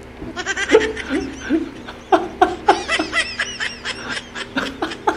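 A man laughing behind his hand, held-in laughter in a string of short bursts.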